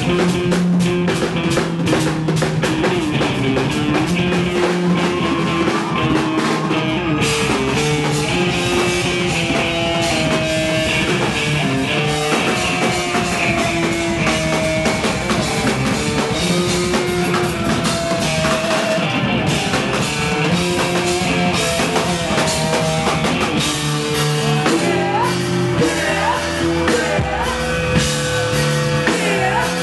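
Live funk band playing an instrumental stretch: electric guitar, bass guitar and drum kit, loud and steady, with drum strokes throughout.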